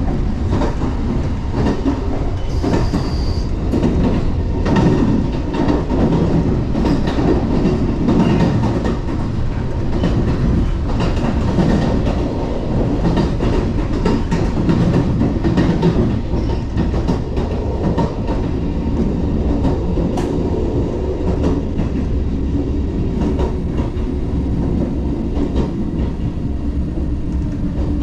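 Running noise of a 381 series tilting electric train heard from inside the car near the doors: a steady low rumble of wheels on rail with scattered clicks over the rail joints. A brief high squeal comes about three seconds in.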